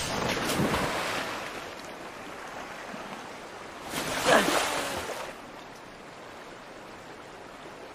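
Sea water splashing and surging as a huge monster's body crashes into it, dying down to a steady wash of waves. About four seconds in, a young man gives a brief, strained cry.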